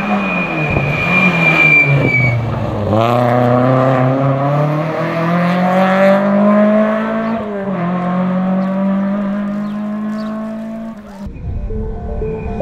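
Rally car engine pulled hard out of a corner: the pitch climbs steadily, drops at a gear change about seven and a half seconds in, then climbs again. A high steady whine sounds over the first two seconds. About eleven seconds in the sound cuts to another car's engine approaching.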